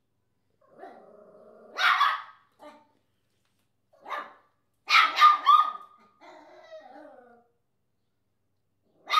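Papillon, a small toy-breed dog, barking in sharp yaps. There is a bark about two seconds in, another about four seconds in, a quick run of three around five seconds and one more near the end. A low drawn-out vocal sound leads into the first bark, and a softer one comes after the run of three.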